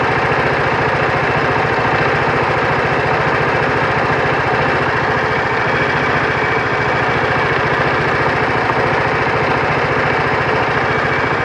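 Vespa GTV 300 ie's single-cylinder four-stroke engine idling steadily with an even, fast firing pulse, run while air is bled from the freshly refilled cooling system.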